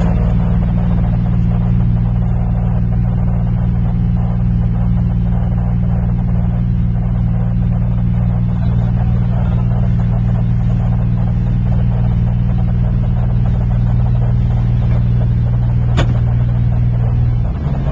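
Small canal tour boat's engine running under way at a steady speed, heard from inside the wheelhouse as a loud, even drone. A single sharp click comes near the end, and the engine note drops slightly just after it.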